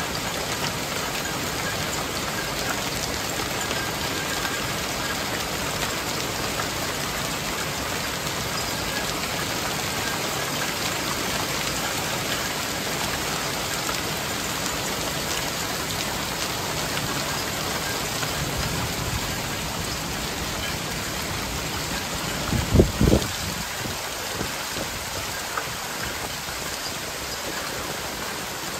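Hailstones and rain pelting a grassy lawn in a dense, steady patter. A couple of low thumps stand out about three-quarters of the way through.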